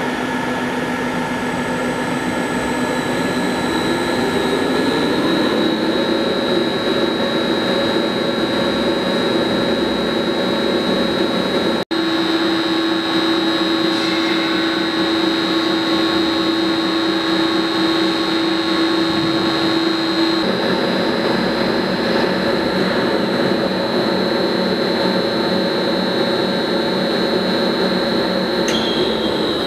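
1000-litre container mixer's electric drive motor and gearbox running steadily through a timed mixing cycle: a loud, even machine whine with a high steady tone. The pitch rises a few seconds in as the drive comes up to speed.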